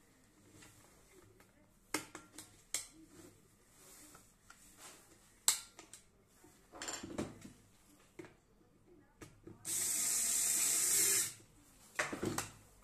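Clicks and rustling of plastic and metal parts being fitted by hand while an electric kettle is reassembled. About ten seconds in, a loud steady hiss lasts about a second and a half.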